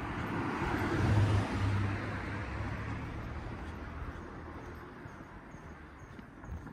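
A car drives past on a residential street, its engine hum and tyre noise swelling to a peak about a second in and then slowly fading away.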